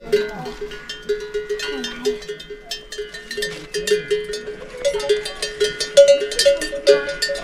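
Livestock bells clanking irregularly, many overlapping strikes ringing on.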